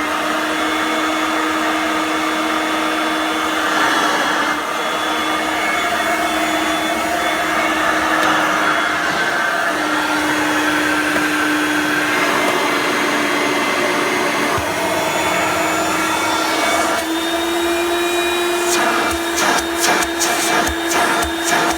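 Hoover Breeze upright vacuum cleaner's motor running steadily with a high-pitched whine, unloaded because no belt or brush roll is fitted, its bearings freshly lubricated. The pitch shifts slightly a couple of times, and a run of quick knocks comes near the end.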